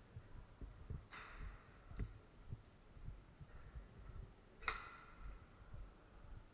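Low, irregular thumps of footsteps and camera movement as a player walks, with three short sharp cracks at about one, two and nearly five seconds in, the last the loudest and ringing briefly.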